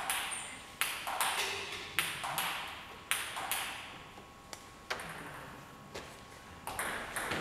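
Table tennis rally: the celluloid ball clicking sharply off the players' bats and the table, about one to two hits a second, each hit ringing on in the hall's echo.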